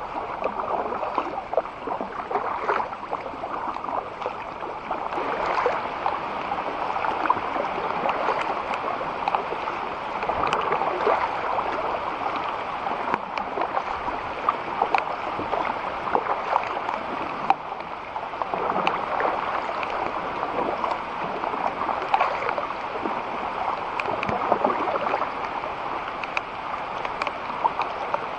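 Water splashing and rushing around a kayak moving down a shallow creek, a steady wash sprinkled with many small ticks of drops.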